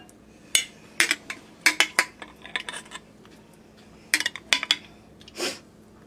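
Metal spoon clinking against a glass jar and drinking glasses while scooping strawberry pie filling, in several quick groups of sharp clinks, with a longer scrape near the end.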